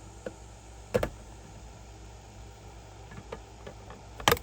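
Scattered light clicks and knocks from tools and electrical parts being handled, over a steady low hum. There is a sharper knock about a second in and a quick double knock near the end.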